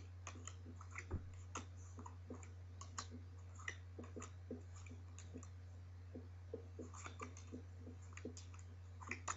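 Playing cards being dealt one at a time onto a quilt-covered table: faint, irregular clicks and taps as each card is handled and laid down, over a steady low hum.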